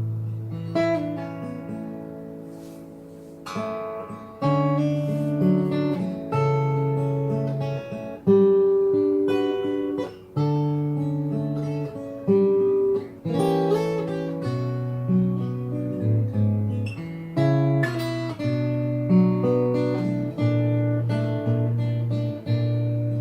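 Yamaha L-12SN all-solid acoustic guitar played fingerstyle on bronze strings: picked melody notes and chords over ringing bass notes, with a fresh attack every second or so.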